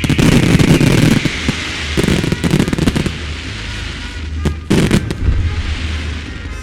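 Fireworks going off: a sudden volley of bursts with dense crackling through the first second, more bursts about two to three seconds in, and two sharp bangs near the five-second mark, over background music.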